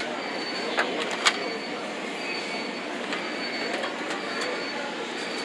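Metal tool-chest drawers sliding along their metal runners with a rolling, slightly squealing sound, and two sharp clicks about a second in.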